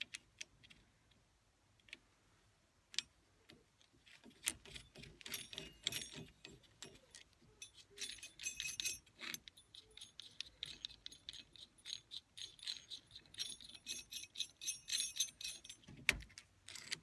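Small metal nuts and washers clicking and rattling on the threaded end of a throttle control cable as they are spun on by hand. The quick, irregular light ticks begin about four seconds in, and there is a sharper click near the end.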